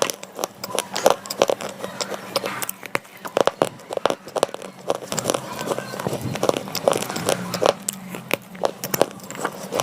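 Slate pencils being bitten and chewed close to the microphone: a dense, irregular run of sharp crunches and crackles, several a second.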